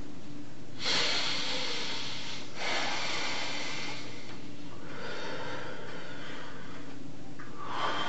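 A man breathing heavily: three long, noisy breaths a couple of seconds each, over a steady low room hum.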